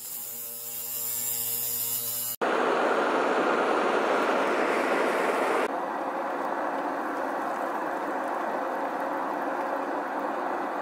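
A power grinder running on steel, throwing sparks, with a steady whine and hiss for about two seconds. After a sudden cut comes a steady loud rushing noise, which drops a little about halfway through.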